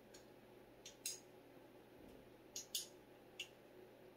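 About six faint, sharp clicks at uneven intervals from a screwdriver turning the small screws that hold the tweeter on a Bowers & Wilkins CM1 speaker.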